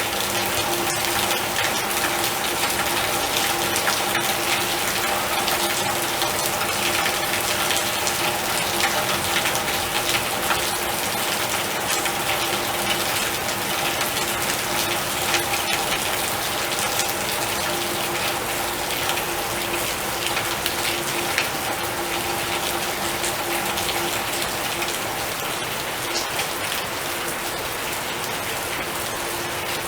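Heavy rain falling steadily, a dense even hiss with scattered drop ticks. Under it runs a steady hum that fades out near the end.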